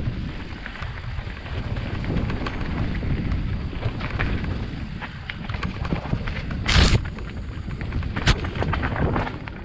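Mountain bike riding fast over a dirt forest trail, with wind rushing over the microphone, a low tyre rumble and many small rattles and clicks from the bike. About two-thirds in there is a loud knock, and a second sharp one follows about a second and a half later, as the bike hits bumps.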